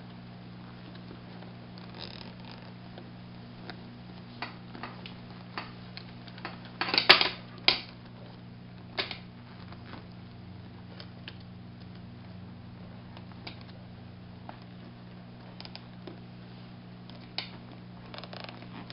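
Nylon zip ties being pulled tight around a headrest frame, their ratchet teeth clicking through the locking heads in short scattered runs. The loudest run is a quick cluster of clicks about seven seconds in.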